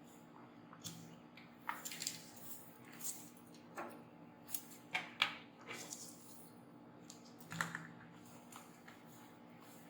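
Irregular small clicks and taps of hand tools and parts being handled on a workbench, over a faint steady hum.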